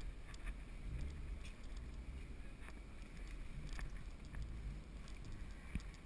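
Low, steady rumble of a car engine and road noise heard from inside the cabin, with a few faint clicks and no revving.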